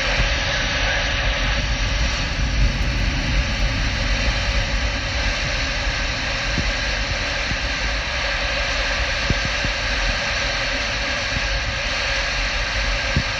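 Steady hiss of a Uniden PC66XL CB radio on channel 19 AM, heard through an external speaker between transmissions, with a low rumble underneath.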